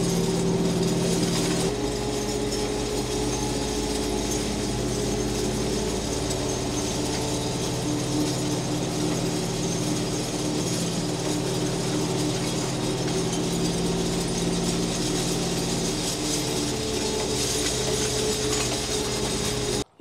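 Kioti compact tractor's diesel engine running steadily as it drags a chain harrow over loose soil, with a continuous metallic rattle from the harrow's chains.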